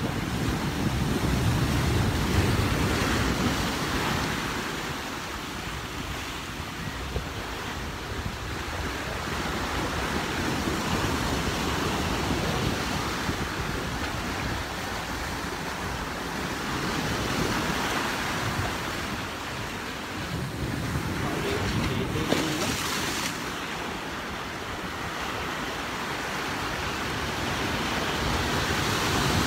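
Sea waves washing and breaking over shoreline rocks, the surf swelling and easing every several seconds, with some wind on the microphone.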